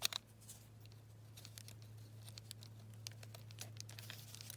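Small clicks and faint scraping of a screwdriver working a screw out of a die-cast toy car's metal base, with a couple of sharper clicks at the start. A steady low hum runs underneath.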